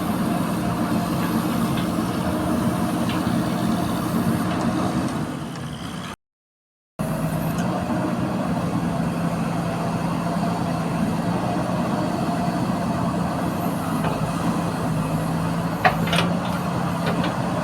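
Diesel engine of a JCB 4DX backhoe loader running at a steady speed, holding one pitch. The sound cuts out completely for under a second about six seconds in, and there is a brief sharp click near the end.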